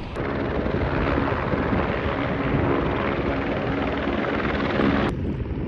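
Light helicopter running close to the ground, its rotor chopping steadily under a dense rush of rotor wash and engine noise.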